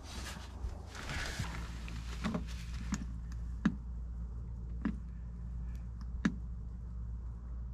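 Rustling, then a handful of sharp clicks at uneven intervals as the buttons on a Bluetti portable power station are pressed and it switches on, over a steady low hum.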